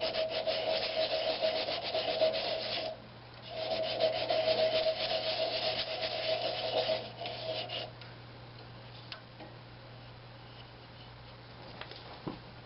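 Sandpaper held against a pine cabinet knob spinning on a wood lathe, taking out the sanding marks: a steady rasping sand, broken briefly about three seconds in, then stopping about eight seconds in, leaving only the lathe's steady low hum and a few light clicks.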